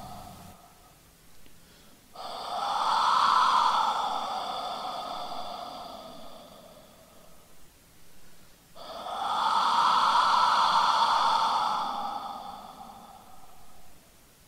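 Two long, breathy blasts on a pre-Hispanic wind instrument, a rushing sound with no clear pitch. The first comes about two seconds in and the second about seven seconds later; each starts suddenly and fades away over about five seconds.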